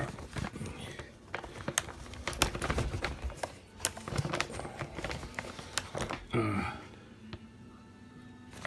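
Irregular clicks and taps of hands fumbling a USB plug at a laptop's USB port, with a brief murmur of voice about six seconds in; the handling noise dies down for the last second or two.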